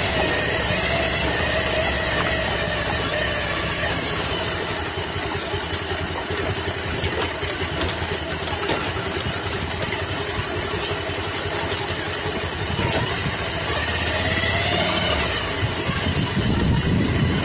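Off-road vehicle's engine running as it is driven slowly along a rough dirt track, its pitch sagging over the first few seconds and climbing again near the end as the throttle is opened.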